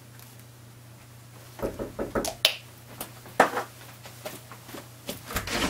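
Knocking on a wooden door: a quick cluster of sharp knocks about a second and a half in, followed by a few single knocks over the next two seconds.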